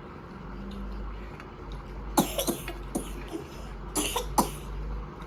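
Coughing from a cold: a run of short, sharp coughs in two bouts, three coughs and then two.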